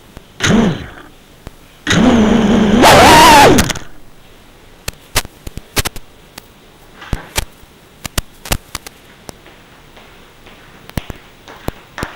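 A tiny FPV whoop drone's brushless motors spinning up in crash-flip (turtle) mode to right the upturned drone: one short burst, then a longer, louder burst that rises in pitch near its end. A scatter of sharp clicks follows.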